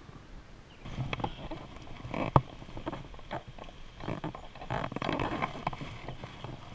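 Fly reel being wound in by hand, with irregular clicking and handling knocks close to the microphone. One sharp click stands out about two and a half seconds in.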